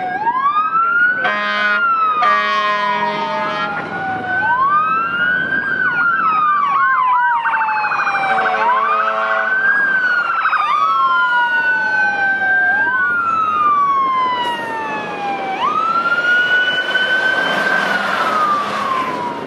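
Fire truck sirens wailing, slowly rising and falling in pitch, with more than one siren overlapping. Air horn blasts cut in about a second in, again for a couple of seconds after, and once more about halfway through.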